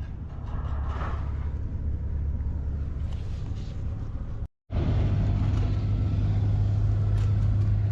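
Truck engine running with a steady low hum. It cuts out for a moment about four and a half seconds in, then comes back louder and steadier.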